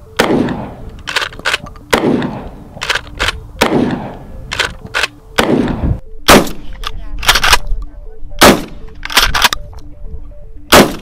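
Kel-Tec KSG 12-gauge pump-action shotgun fired repeatedly, a shot about every two seconds, with the pump's clack-clack racking between shots. The first four shots, fired without a muzzle brake, are each followed by a long rolling echo. The last three are fired with the Howitzer70 muzzle brake fitted.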